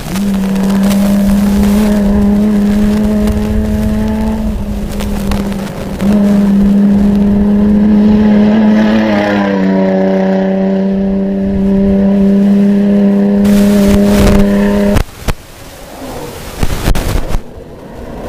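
Off-road race vehicle's engine held at high, steady revs for about fifteen seconds, its pitch dropping slightly about nine seconds in, then cutting off suddenly. A few scattered knocks follow near the end.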